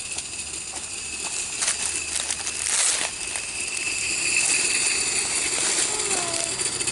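Steady, high-pitched drone of insects in the bush, with dry leaf litter crunching underfoot about two to three seconds in.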